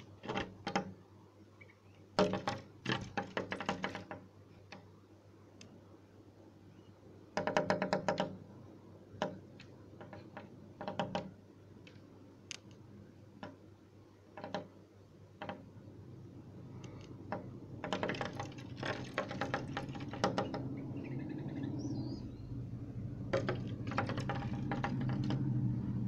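Red-whiskered bulbuls striking a window pane in rapid bursts of tapping, with single taps between, as they attack their own reflection in the glass. A low hum rises in the background during the second half.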